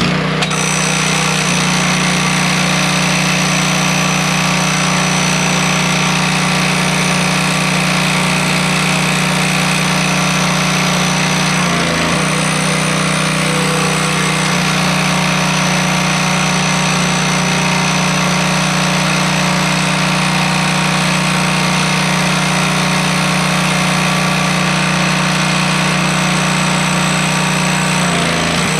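Simpson gas pressure washer running under load, its engine and pump giving a loud, steady drone while it sprays detergent through the black soaker tip. The drone falters briefly twice, about twelve seconds in and again near the end.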